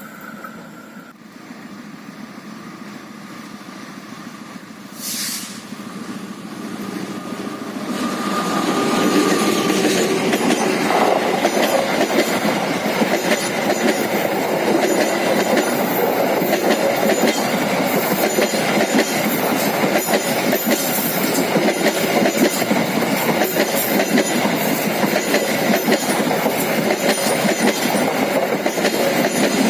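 A train passing on the track: the sound grows quickly about a quarter of the way in, then the wheels and carriages clatter steadily and loudly over the rails.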